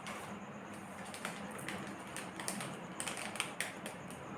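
Light, irregular clicks and taps from small metal jewellery flower connectors being handled and turned over.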